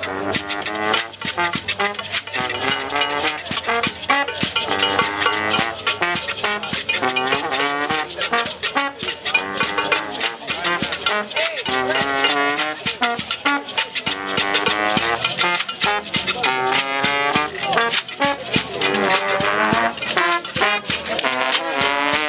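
Live music: a shaker or rattle keeps up a dense, steady rhythm under a pitched melody that wavers in pitch, sung or played.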